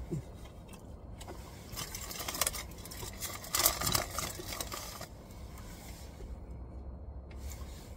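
Crinkling and rustling of a sandwich's foil and paper wrapper being handled, an irregular stretch of crackles from about two seconds in for about two seconds, over a low steady hum.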